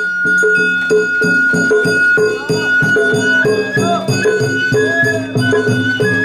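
Sawara-bayashi festival music played live by the float's musicians. A bamboo flute holds one long high note, then breaks into a wavering, ornamented melody about halfway through, over steady drum beats and bright metallic ringing.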